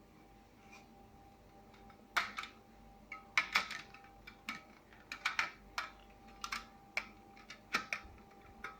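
Irregular sharp clicks and knocks of hard plastic fan parts being handled and pushed together as a pedestal fan's base is forced into its tight-fitting pole grip. They start about two seconds in, over a faint steady hum.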